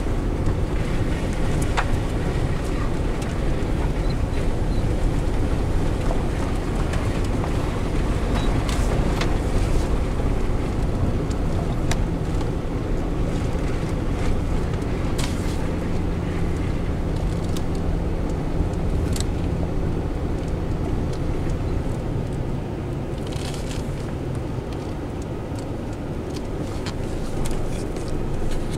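Vehicle running slowly along a rough dirt and gravel track, heard from inside the cabin: a steady engine hum and road noise, with scattered sharp clicks and knocks. It gets a little quieter near the end.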